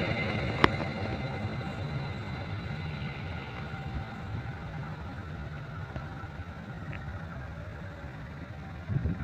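Diesel train's low rumble slowly fading, with one sharp click about half a second in.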